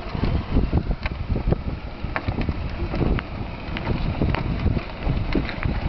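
Hard plastic wheels of a battery-powered Barbie ride-on toy jeep rolling over asphalt, with many small clicks and rattles, while wind buffets the microphone with a low rumble.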